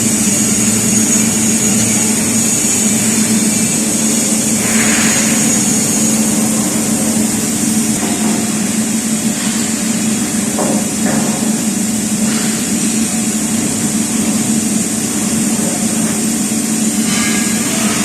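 CNC angle drilling machine running, with a steady mechanical hum and a high whine, and a few faint knocks.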